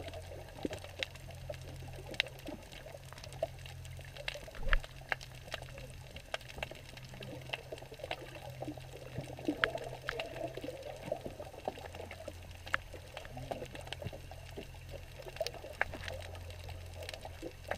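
Underwater ambience picked up through a camera's waterproof housing on the seabed: a steady low hum with scattered sharp clicks and crackles at irregular intervals.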